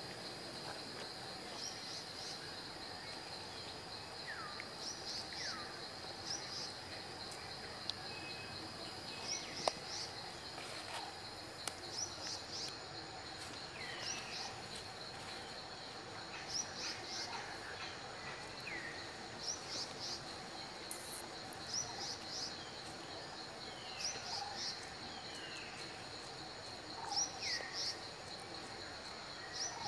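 A steady high-pitched insect drone, cricket-like, with birds chirping in quick clusters and giving short falling whistles every few seconds.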